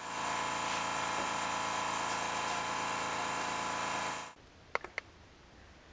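An electric motor running steadily with a dense whine, cutting off suddenly about four seconds in, followed by two light taps.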